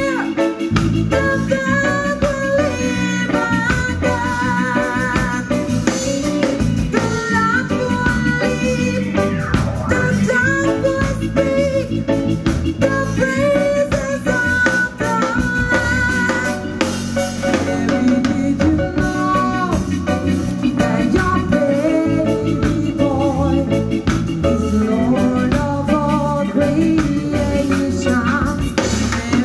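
Reggae band playing live: singing over drum kit, electric guitar and keyboards.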